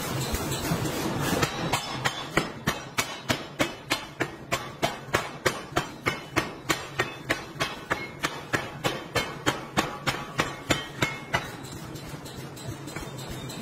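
Pneumatic forging hammer striking in a fast even series, about four blows a second, over a steady low hum; the blows start about a second in and stop about eleven seconds in.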